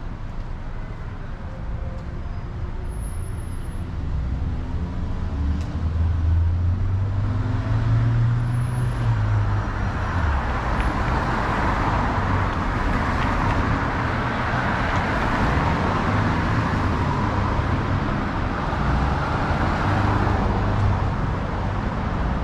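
Road traffic passing close by on a city street. A vehicle's engine rumble builds about six seconds in, then the hiss of tyres on the road swells and holds through the middle.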